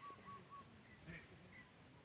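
Faint bird calls: three short, evenly repeated notes, the end of a longer run, followed by a couple of higher, single chirps.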